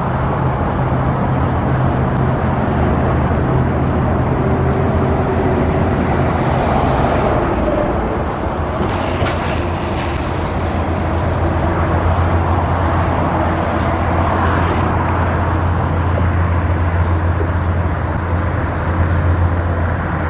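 Motor vehicle engine running with a steady low drone, under a wash of road traffic; the drone steps down to a lower pitch about eight seconds in.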